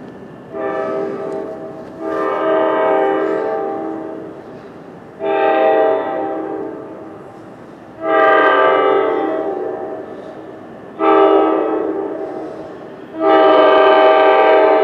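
Air horn of an NJ Transit ALP-46A electric locomotive sounding six blasts, a chord of several notes, over a low rumble. Most blasts are long, one about five seconds in is short, and the last, near the end, is the loudest.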